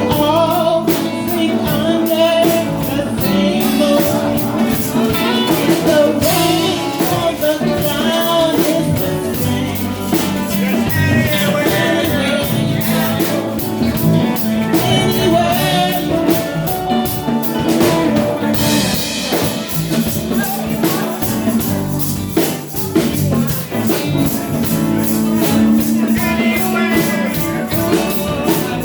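A song with a sung vocal over a band with drums, tambourine and guitar, keeping a steady beat.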